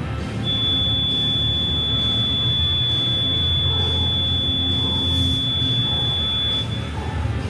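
Gym workout timer sounding one long, steady high beep lasting about six seconds, the end-of-time signal for a 20-minute AMRAP workout.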